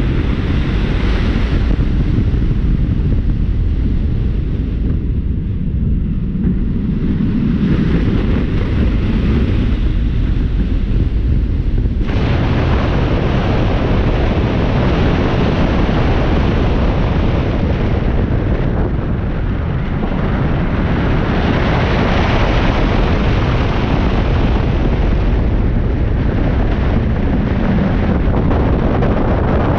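Steel giga roller coaster train running at speed, heavy wind buffeting the front-mounted camera's microphone over a low rumble from the train on its track. About twelve seconds in, a sudden brighter rush of wind noise fills in.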